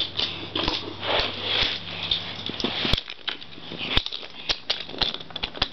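Toy train trucks clicking and rattling as they are pushed around on a toy track, with irregular sharp clicks and knocks and a light rustle between them.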